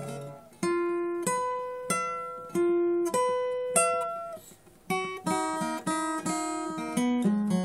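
Acoustic guitar picking a slow melody, single notes about two-thirds of a second apart, each ringing and fading, then quicker, fuller playing from about five seconds in.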